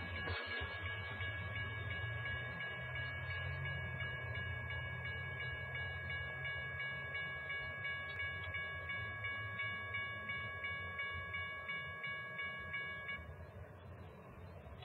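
Canadian Pacific Holiday Train's last passenger cars rumbling past and fading away down the track. Over it, a railroad crossing bell rings steadily, with repeated strikes, and stops about thirteen seconds in.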